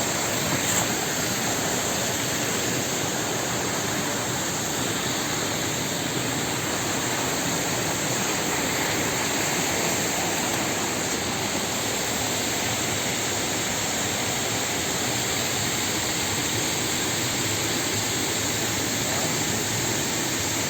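Steady rushing of a waterfall, an even noise without any change.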